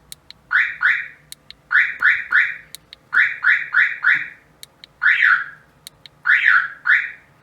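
A StarLine A91 car alarm's siren gives short chirps in groups of two to four, with faint clicks in between, as the service button is pressed through the programming functions. The chirps confirm each step in programming mode.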